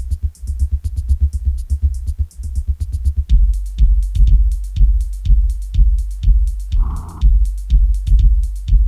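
Industrial death metal demo recording from 1994, driven by a drum machine and heavy low-end. It opens with rapid low kicks under steady high ticks. About three seconds in it changes to a slower, heavy pulse about twice a second, with a short mid-pitched stab near the end.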